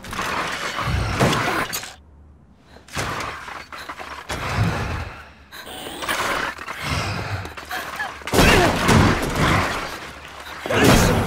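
Film sound effects of a scrap-metal monster's attack: crashing, shattering metal and heavy thuds with a hall-like echo. There is a brief lull about two seconds in, then the crashes return and are loudest over the last three seconds, with some metallic screeches among them.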